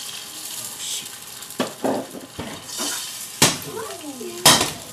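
Metal cookware clattering, with several sharp knocks of pan and utensils, over a faint sizzle from the hot pan.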